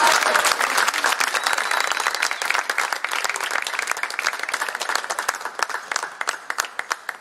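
Audience applauding, loudest at the start and thinning out to scattered individual claps near the end.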